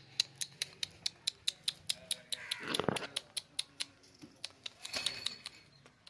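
Alexandrine parakeets in a wire cage: a run of crisp clicks, about five a second, through the first few seconds, with a louder scratchy rasp near the middle and a short high note about five seconds in.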